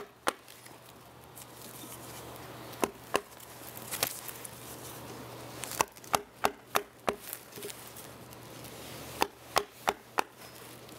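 Wooden mallet striking a carving chisel into a log, sharp wooden knocks as the chisel pares away wood in detail carving. The strikes come irregularly, some alone and some in quick runs of three or four about three a second, with pauses between.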